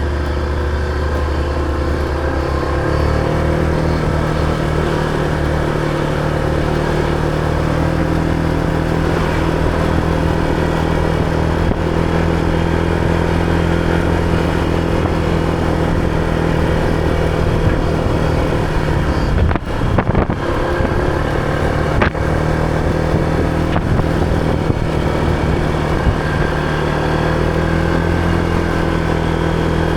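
Motor scooter engine running steadily under way, its pitch stepping up a few seconds in. A few sharp knocks come about two-thirds of the way through.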